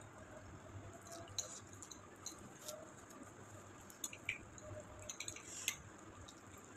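Faint sounds of people eating noodles with forks: soft slurping and chewing, with scattered small clicks and taps of metal forks on ceramic plates.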